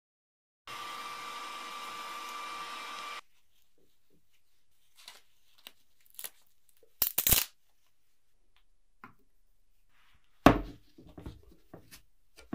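A workshop machine runs steadily for about two and a half seconds, starting and stopping abruptly. After it come scattered clicks and clatters of tools and workpieces being handled, with a loud clatter near the middle and a loud knock near the end.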